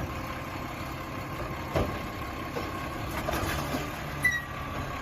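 Steady engine-like idling noise with a few light knocks, one about two seconds in and one near the end.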